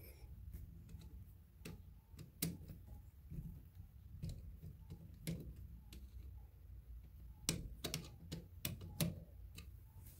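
Faint, irregular small clicks and taps of hand tools and wires working against an old plastic electrical receptacle while its wires are being worked loose, with a brief flurry of clicks near the end.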